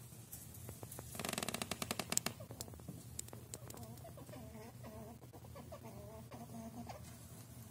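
Squirrels calling: a rapid burst of clicking chatter about a second in, then a soft, wavering, whine-like call for about three seconds.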